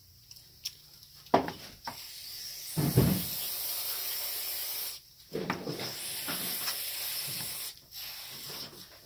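Aerosol brake parts cleaner sprayed through its straw into the passages of a Mikuni carburetor: two long hissing sprays of a couple of seconds each, starting about two seconds in and again just after five seconds. A few sharp knocks of the carburetor body being handled come before and at the start of the first spray.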